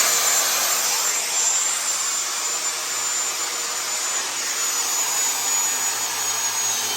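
Electric power saw spinning up to a high, steady whine and running loudly without a break.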